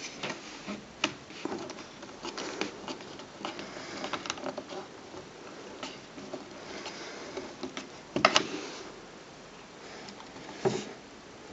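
Irregular clicks and light knocks of hands handling a 1950s Bell & Howell 606H cine projector converted into a desk lamp, metal parts tapping and shifting, with a louder clatter about eight seconds in and another knock near the end.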